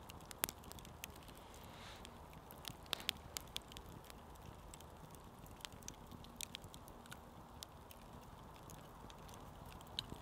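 Small campfire of split oak burning, crackling with scattered sharp pops at irregular intervals over a faint steady background.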